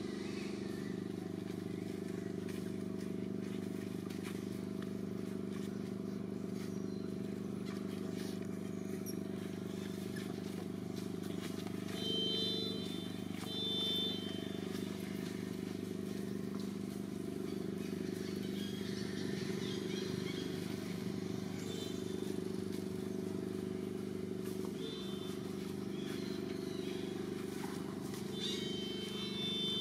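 Steady low engine drone throughout. A baby long-tailed macaque gives short high-pitched cries several times, starting about twelve seconds in, the last near the end.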